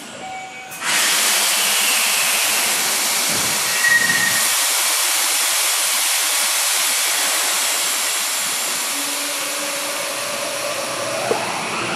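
Subway train standing at the platform: a loud, steady hiss starts suddenly about a second in and holds. Near the end a rising whine begins as the train's traction motors start it moving.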